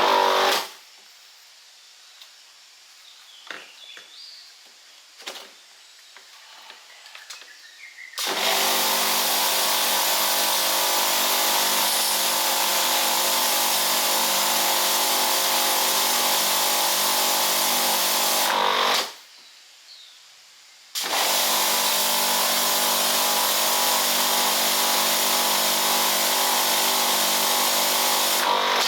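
Bosch Aquatak electric pressure washer running under trigger: a steady motor-and-pump drone with a loud hiss of spray. It starts about eight seconds in and cuts out for about two seconds just before the two-thirds mark, which is typical of the auto-stop when the trigger is released. It then runs again and stops near the end.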